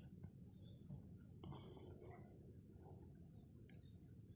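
Crickets trilling steadily and faintly, two high continuous tones, over a low background rumble.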